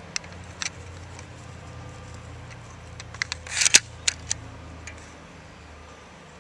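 Plastic clicks and a slide being worked on an HFC Glock 17 spring airsoft pistol. A few light clicks come first. Then, a little over three and a half seconds in, a short rasp ends in a sharp snap, the loudest sound, followed by a few more clicks. The slide keeps locking back after each shot, a fault the owner can't explain.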